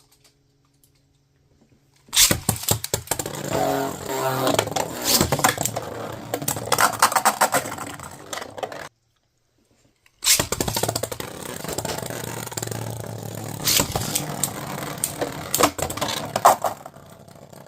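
3D-printed Beyblade spinning tops launched into a stadium, whirring and clattering against each other and the stadium walls, with many sharp clicks of impact. It starts suddenly about two seconds in, cuts off abruptly near the middle, and a second round of the same spinning and clattering starts about a second later.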